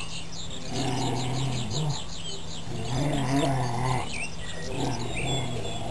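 Dogs growling in rough play: two low, drawn-out growls of about a second each, with birds chirping in the first two seconds.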